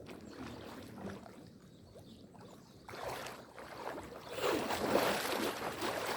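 Water splashing and sloshing in a shallow stream, as if someone is moving through it. It is irregular, louder from about three seconds in and loudest near the end.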